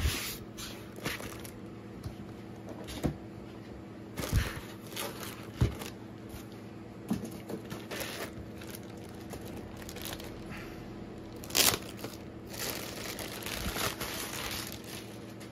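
Packaging being handled: a cardboard box, white foam end caps pulled off the boxed unit, and a plastic bag crinkling as the unit is slid out of it. Scattered rustles and knocks, the loudest crinkle about twelve seconds in.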